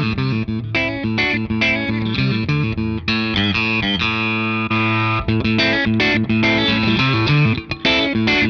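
Electric guitar played through a Strymon Compadre compressor in squeeze mode with little dry signal in the mix, giving a very squeezed, compressed sound. Partway through, the pedal's full-frequency clean boost is switched on to give a bigger sound.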